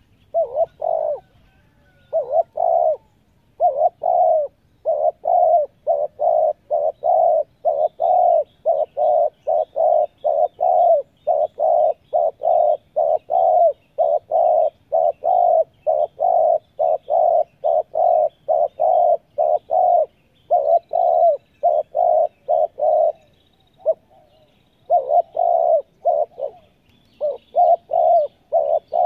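Spotted dove cooing in a fast, unbroken run of short notes, about three a second, with a few brief pauses; this is the quick 'speed' calling style a decoy dove is trained to. Small birds chirp faintly behind it.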